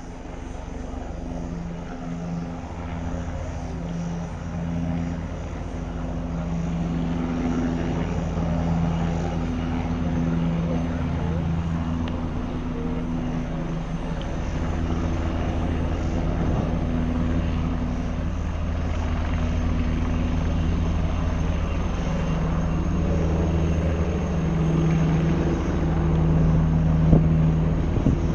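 Australian Army Tiger ARH helicopters approaching: a steady rotor and engine drone that grows gradually louder as they near.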